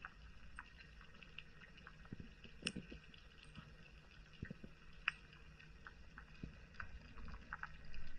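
Underwater ambience over a coral reef: scattered sharp clicks and crackles over a faint, steady low hum, with a couple of louder clicks near the middle.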